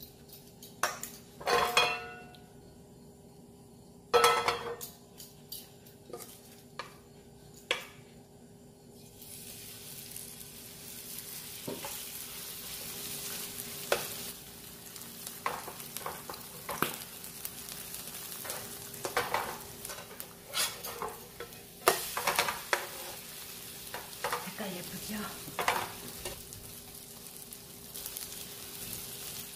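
Clinks and knocks of a utensil against a bowl and pan as pancake batter goes in. About nine seconds in, a steady sizzle of the batter frying in hot olive oil in a nonstick frying pan begins. Repeated scrapes and taps of a metal spatula spreading and pressing the pancake run over the sizzle.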